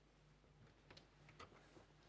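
Near silence: room tone with a faint steady low hum and two faint clicks about a second in.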